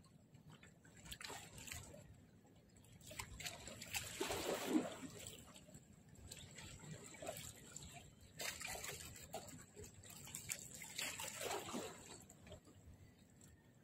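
Small sea waves lapping and sloshing against the rocks of a seawall, with two louder washes about four and eleven seconds in.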